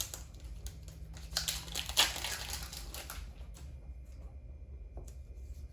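Foil wrapper of a trading-card booster pack crinkling and tearing as it is opened, with a sharp crackle about two seconds in, then fainter rustling.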